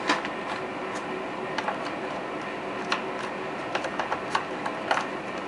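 Scattered light clicks and taps of hard plastic toy parts being handled as the toy boat's engine cover is fitted back into place, about ten in all, over a steady room hiss.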